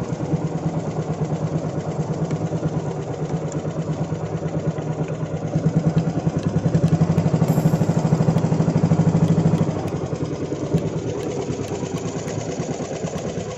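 Small fishing-boat (banca) engine running steadily close by with a rapid even pulse, louder for about four seconds in the middle.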